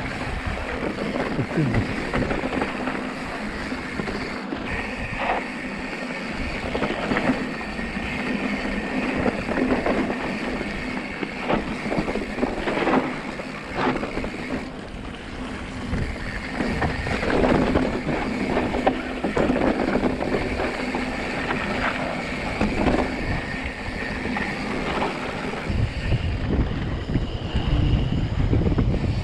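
Mountain bike rolling over a rough dirt trail: a steady rush of tyre and wind noise on the microphone, with frequent clicks and rattles from the bike over bumps and a heavier low rumble near the end.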